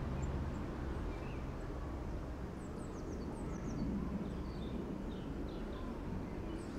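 Small birds chirping in short, high, quickly falling notes, in clusters about midway and again near the end, over a steady low background rumble.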